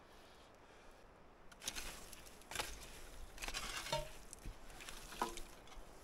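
Scraping and rustling through debris with a few short metallic clinks that ring briefly, as an old wood stove is worked loose. It starts about a second and a half in.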